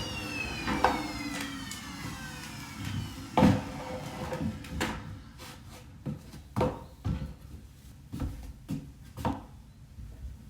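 Vacuum cleaner motor winding down after being switched off, its whine falling steadily in pitch and fading over the first couple of seconds. Then come scattered sharp clicks and knocks, roughly one a second, the loudest about a third of the way in.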